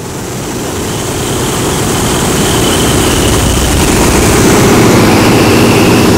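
Stearman biplane's radial engine and propeller running, with wind rushing through the open cockpit. It grows louder over the first four seconds, then holds steady.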